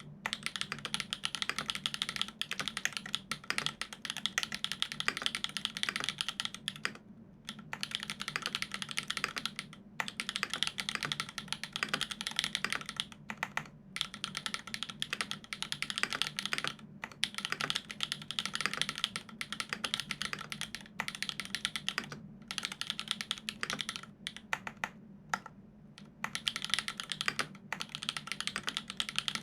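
Continuous fast typing on a Dolumina65 mechanical keyboard with lubed Everglide Dark Jade Black linear switches on an aluminium plate and GMK keycaps, a dense run of keystrokes broken by brief pauses every few seconds.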